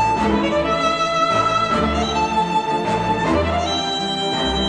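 Instrumental music with violin and bowed strings over bass notes, played back through Klipsch The Fives powered speakers over Bluetooth with the vocal EQ preset.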